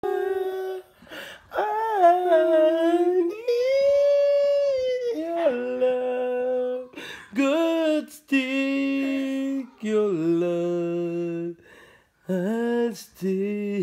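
Unaccompanied humming of a slow melody: long held notes that slide up and down between pitches, with short breaths between phrases.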